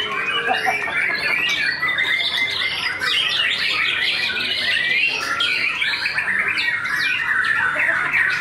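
White-rumped shama (murai batu) singing in a dense, unbroken run of fast, varied chirps, trills and harsh notes.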